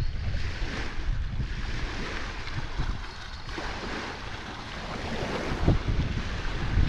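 Small waves splashing and washing over the rocks of a lake shore, with wind gusting across the microphone.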